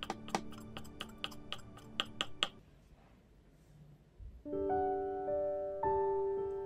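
Kitchen knife chopping thin egg-crepe strips on a wooden cutting board, sharp knocks about three or four a second over soft background music. The chopping stops about two and a half seconds in, and piano chords come in about two seconds later.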